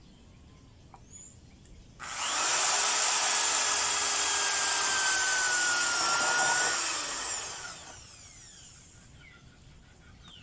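Corded electric drill boring into a wooden board: the motor starts suddenly about two seconds in, runs with a steady whine for about five seconds, then is released and spins down, its pitch falling as it fades.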